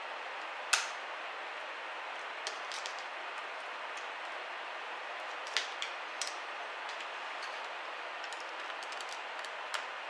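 Sharp clicks and taps of metal hand tools, a flat pry tool and a screwdriver, against a laptop's hard-drive bracket and chassis. The loudest comes about a second in, a few more come around the middle, and one comes near the end, all over a steady hiss.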